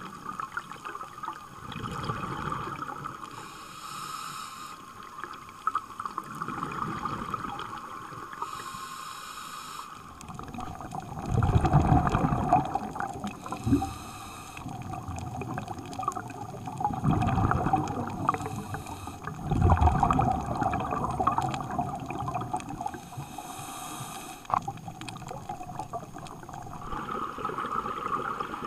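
Scuba diver breathing through a regulator underwater: a short hiss on each inhale and a rush of exhaled bubbles, in a cycle of about five seconds. A steady hum runs under it and drops in pitch about ten seconds in.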